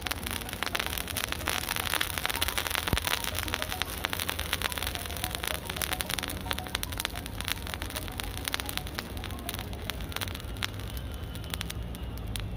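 Potassium permanganate and glycerin burning: a dense, irregular crackling over a steady hiss as the mixture flares, busiest in the first few seconds, with a low rumble underneath.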